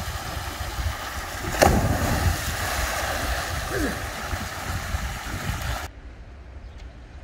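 A person jumping into a swimming pool: one loud splash about a second and a half in, followed by churning, splashing water. The sound drops abruptly to a much quieter background about a second before the end.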